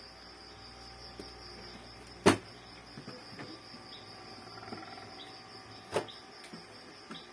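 Epson L3110 ink-tank printer starting up after power-on: two sharp mechanical clicks about two seconds in and six seconds in, with a faint brief motor whir between them as the print head carriage begins to move. Crickets chirp steadily underneath.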